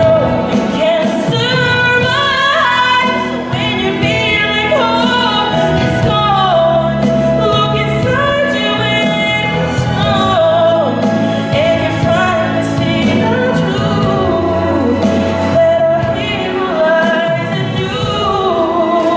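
A young woman singing a melodic song into a handheld microphone over instrumental accompaniment, her voice gliding between notes and holding some of them.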